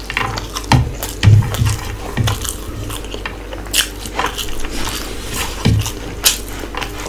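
Close-miked chewing of a mouthful of spiced rice pulao eaten by hand: wet mouth clicks and smacks, with a few low thuds from the chewing.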